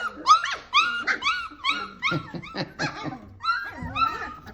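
Litter of three-week-old griffon puppies yipping and whining, many short high-pitched cries overlapping, several a second.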